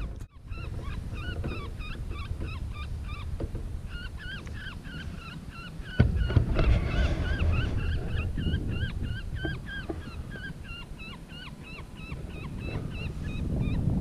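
A rapid series of short, squeaky high calls, several a second, over a steady low rumble, with a sharp knock about six seconds in.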